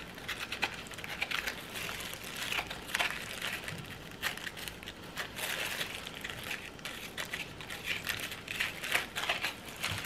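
Metal spoon scraping the core and seeds out of a halved Asian pear, with thin plastic gloves crinkling: a continuous run of small irregular scrapes and crackles.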